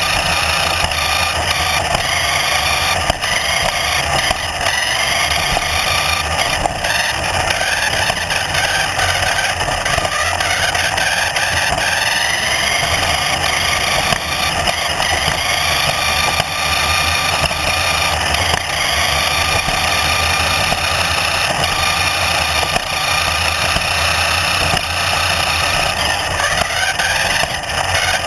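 A vehicle's motor running continuously, its whine rising and falling in pitch over a steady rumble of noise.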